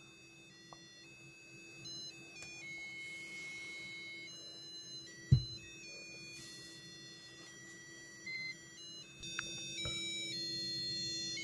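A Santa ornament electronics kit's little speaker buzzer playing a simple melody as a string of clean stepped beep notes, over a steady low hum. One short dull thump about five seconds in.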